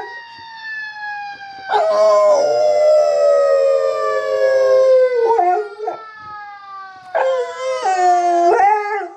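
A boxer dog howling along with a fire engine siren, whose tone slides slowly downward. The dog's long, wavering howls come in two main stretches: from about two to five seconds in, and again near the end.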